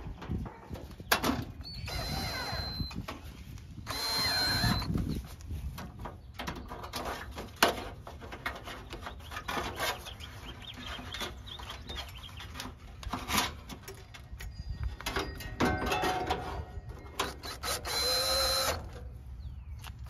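Cordless drill driving sheet-metal screws in a few short bursts, one about two seconds in, one about four seconds in and one near the end, amid scattered clanks and knocks of an AC condenser's metal cover and panels being handled and fitted back on.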